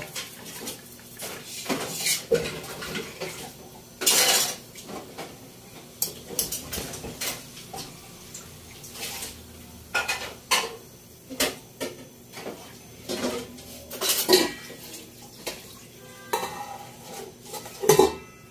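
A cooking utensil clinking and scraping in a stainless steel frying pan as food is stirred, in irregular clatters, with loud clanks about four seconds in, about fourteen seconds in and near the end.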